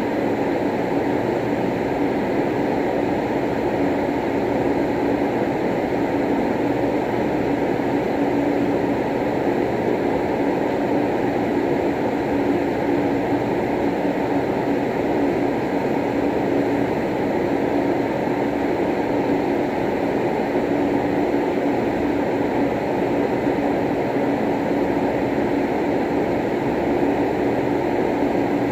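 Steady, even rumbling noise with a constant low hum running under it, unchanging throughout.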